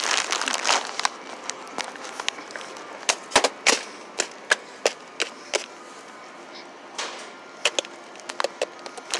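Irregular sharp clicks and knocks, several close together in the first second and again between about three and five and a half seconds in, over a steady background hum.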